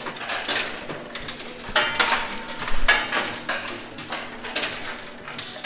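Metal coins clinking and clattering in a coin pusher machine as they drop and slide against each other on the pusher shelves: a string of sharp clinks, loudest about two to three seconds in.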